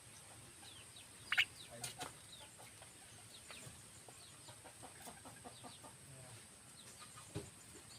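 Birds calling: many short, falling chirps repeat throughout, with one louder call about a second and a half in and a sharp knock near the end.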